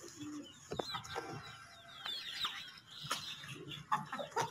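Bird calls: several short falling chirps, with a few faint sharp clicks in between.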